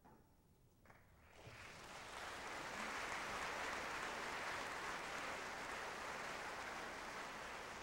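Audience applauding: the clapping rises out of near silence about a second in and swells to a steady level.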